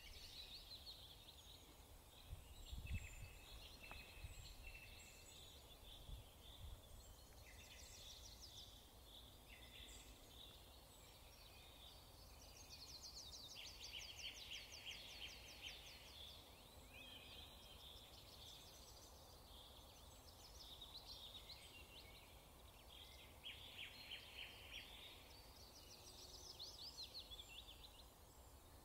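Faint birdsong, with repeated chirps and trills that come in bursts all the way through. A couple of soft low thuds come about three seconds in and again a few seconds later.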